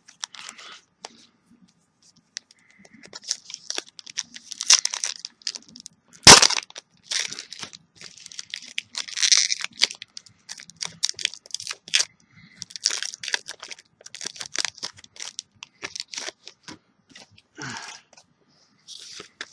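A trading-card booster pack wrapper being torn and crinkled open by hand: a long run of irregular crackles and rustles, with one sharp crack about six seconds in.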